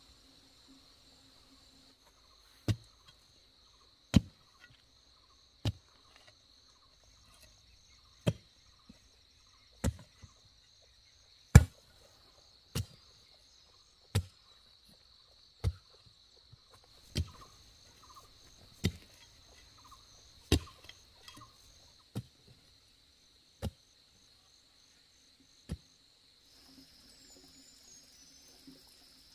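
Sharp blows of a hand tool striking, about fifteen of them at roughly one every second and a half, over the steady high drone of insects.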